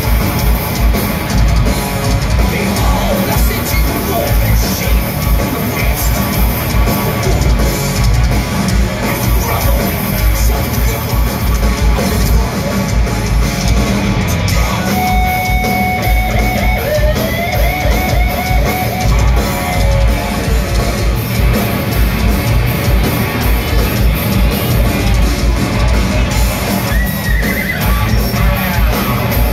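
Thrash metal band playing live and loud: fast, dense drumming with rapid kick drum hits under distorted electric guitars. About halfway through, a lead guitar holds high notes and bends them, and there is another sliding bend near the end.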